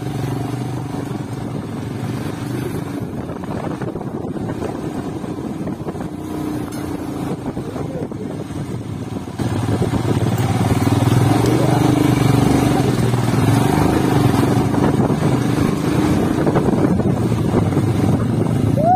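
Motorcycle engine running steadily under way, with wind and road noise, growing louder about halfway through.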